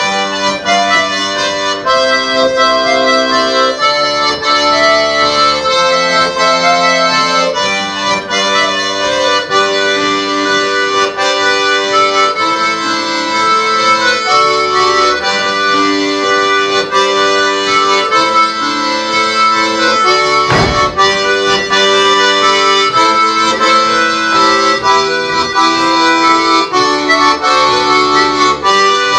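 Accordion playing a lively Breton dance tune, with melody and chords moving over a steady bass.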